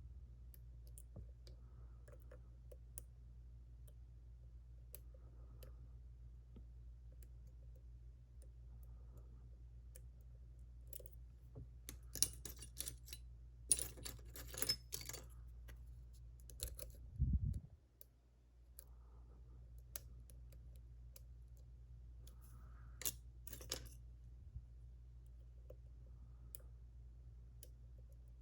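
Lock pick and tension wrench working the pins of a JPM Surf lock, a six-pin lock with five side pins. Faint scattered metallic clicks, then a flurry of louder clicks about halfway through, a dull knock just after, and a couple more clicks near the end, over a steady low hum.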